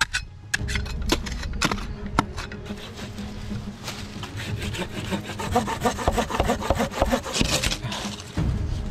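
Pruning saw cutting through a dry, dead branch with quick back-and-forth rasping strokes.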